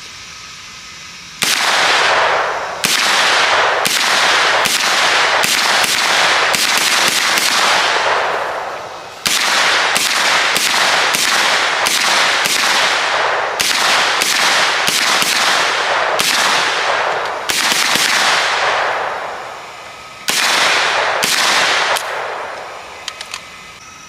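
Mac 5, a 9mm MP5-clone pistol, firing a long run of shots at roughly one to two a second, each crack followed by a short ringing tail. The shots come in three strings with two short breaks between them.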